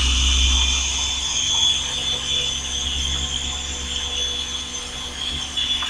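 Modified remote-controlled helicopter's small electric motor and rotors running in flight, a steady high whine over a low hum that slowly gets a little quieter.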